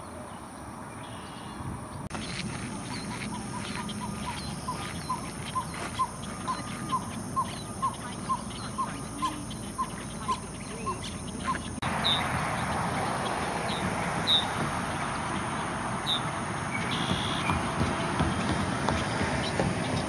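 An animal calling in a steady series of short notes, about two a second, for several seconds. After an abrupt change, the background hiss grows louder and a few scattered high chips are heard.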